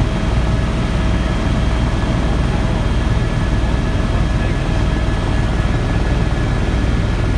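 Helicopter's engine and rotor running steadily in flight, heard from inside the cabin: a deep, rapid, even beat of the rotor under a few thin, steady whining tones.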